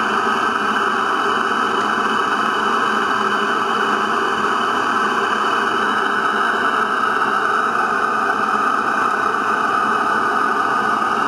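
Stuart Half Beam model steam engine running under steam from its boiler, giving a steady, even hiss with no distinct beat.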